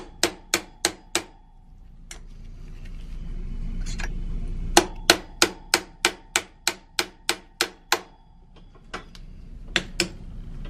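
A metal hammer striking a steel pin punch to drive a worn frame hinge pin out of a Brompton folding bike's hinge. The taps are sharp and metallic and come in runs: four quick taps at the start, a single tap, then a steady run of about ten at roughly three a second, and a few more near the end.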